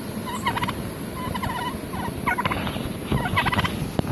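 Domestic turkey tom gobbling again and again, several quick rattling gobbles in a row, about one a second.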